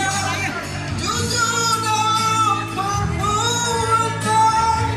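A singer's voice holding long, slightly wavering notes over musical accompaniment.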